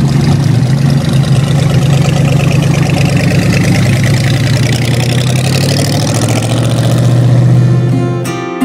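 Hot rod engine running loudly through open side exhaust pipes as the car rolls slowly past. It swells slightly, then fades out near the end.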